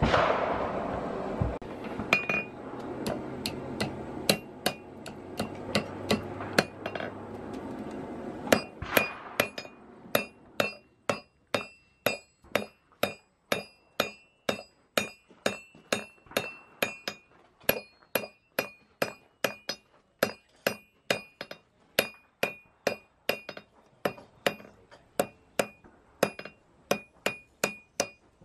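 Blacksmith's hammer striking red-hot iron on an anvil, about two blows a second, each with a bright ringing note, while the split tines of a roasting fork are forged. Before the hammering begins there are about eight seconds of steady rushing noise from the coal forge fire as the iron heats.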